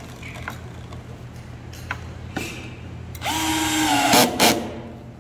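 Cordless drill-driver driving a wood screw into a wooden bookshelf joint for about a second and a half, its motor whine sagging slightly in pitch as the screw bites, with two short bursts as it seats. A few light knocks of the wooden parts being set in place come before it.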